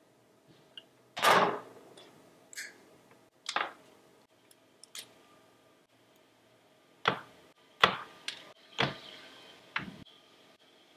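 Hand tools working electrical cable: side cutters snipping through a computer power cable and wire strippers clicking on its inner wires. There are about nine sharp snips and clicks at uneven intervals, the loudest and longest about a second in.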